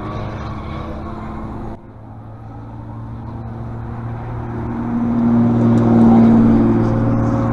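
Car engine running. The sound breaks off abruptly near two seconds, then grows louder to a peak about six seconds in and eases off, as a car coming close and moving away would.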